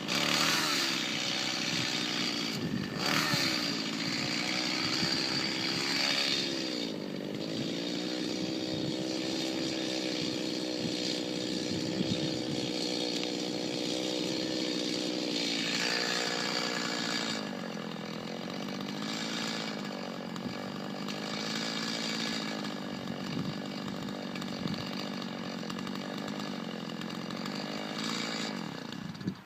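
Two-stroke chainsaw running under load, cutting dead ash wood; its engine pitch sags and recovers several times as the chain bites, then it stops right at the end.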